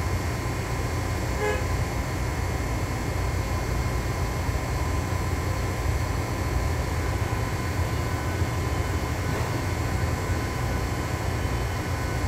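Cabin noise inside a LiAZ-6213.22 articulated diesel city bus: a steady low rumble from the engine and running gear as it rides between stops. There is a very short faint beep about a second and a half in.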